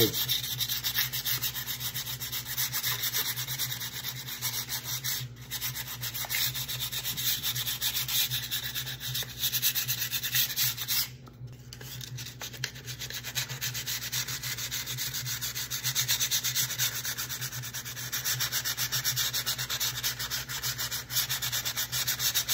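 Very fine sandpaper rubbed by hand in quick back-and-forth strokes over a painted wooden tray, lightly distressing the stenciled paint lettering. The strokes break off briefly about five seconds in and again near the middle.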